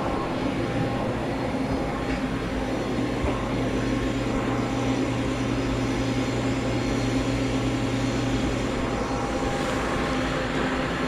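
Steady machine hum with a few held low tones; the lowest tone drops out about nine seconds in.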